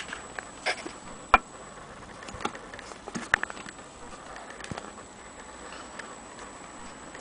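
Irregular light clicks and knocks of a hand handling an antique Willcox & Gibbs chain stitch sewing machine, with one sharp click about a second in and a few more spread over the next few seconds.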